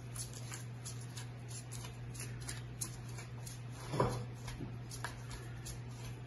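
Hands in thin plastic gloves kneading pizza dough in a glass bowl: repeated soft crinkling and sticky squishing, about three or four a second, with one louder thump about four seconds in. A steady low hum runs underneath.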